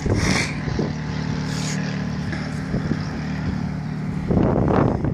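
Steady low machine hum from rooftop equipment, with gusts of wind buffeting the microphone at the start and again about four seconds in.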